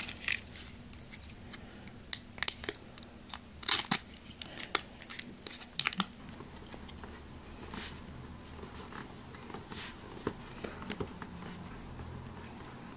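Foil sachet of Sugru mouldable glue being torn and peeled open, with sharp crinkling and tearing crackles through the first half. After that it goes quieter, leaving soft handling noise as the putty is worked onto the helmet.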